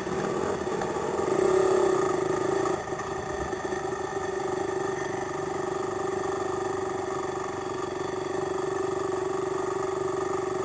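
Racing quad's engine heard from the rider's helmet, running at low, steady revs as it rolls along, with a brief rise in revs and loudness about a second and a half in.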